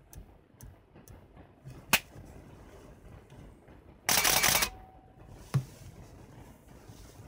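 Canon EOS-1 film SLR with Power Drive Booster E1 firing: a sharp click about two seconds in, then a loud burst of shutter and motor-driven film advance lasting about half a second, and a further single click a second later.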